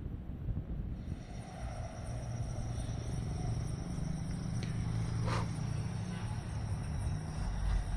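Steady high-pitched chirping of crickets or other insects, over a low rumble.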